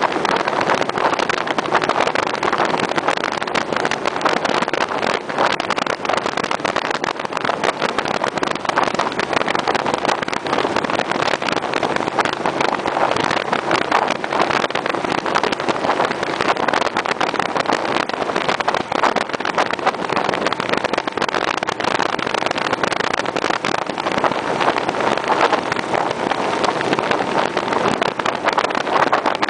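Motorcycle riding at speed: a steady rush of wind buffeting the microphone over the engine's running drone.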